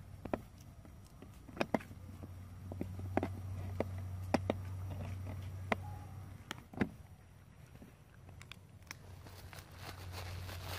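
Macaques feeding and moving about: scattered small clicks and crackles over a steady low hum.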